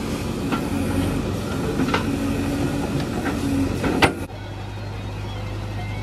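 JCB 3DX backhoe loader's diesel engine running, with several sharp metallic clanks, the loudest about four seconds in. Just after it the engine sound switches abruptly to a steadier, lower hum.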